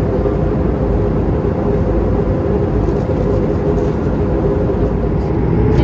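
Steady engine and air noise inside the cabin of an Airbus A220-300 with Pratt & Whitney PW1500G geared turbofans: a dense, even rumble with a steady hum in it.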